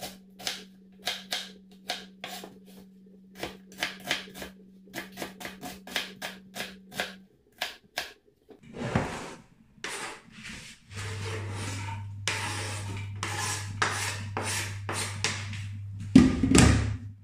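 Kitchen knife chopping an onion on a plastic cutting board, in irregular sharp strokes a couple a second. Then a metal spoon stirs and scrapes in a stainless steel pot, ending in a loud clank near the end.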